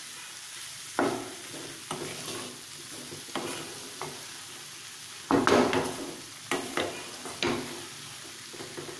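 A spatula stir-frying cabbage rice in a frying pan, with a steady faint sizzle under it. The spatula scrapes and knocks against the pan again and again, loudest in a cluster a little past halfway.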